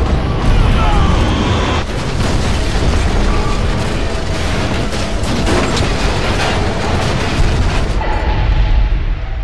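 Sci-fi explosion sound effects: a cruiser's Rhydonium bomb going off, heard as a long run of loud booms and blasts.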